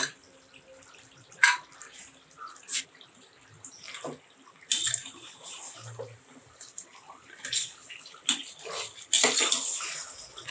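Pressure cooker lid clanking off at the start, then a steel ladle stirring thick, wet chicken masala in the cooker, with irregular scrapes and knocks against the pot and wet squelching, heaviest about halfway through and near the end.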